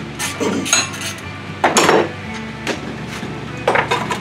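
Hand tools and loose engine parts clinking and knocking against each other, several separate metal strikes, the loudest about two seconds in, as a socket and bolts are handled while an old engine is being taken apart.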